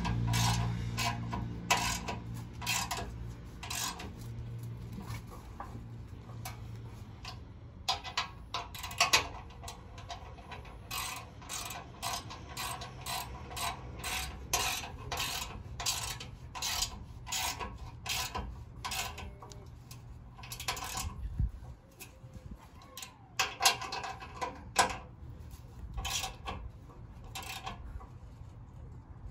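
Hand socket ratchet clicking in quick runs as hitch bolts are wound in and tightened, the pawl ticking on each back-stroke.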